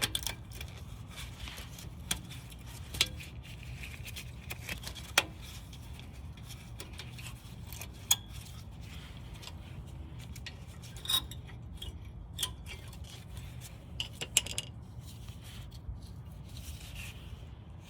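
Metal brake pads and their clips clinking and scraping as they are seated in a disc brake caliper bracket, with sharp clicks every second or few, over a steady low hum.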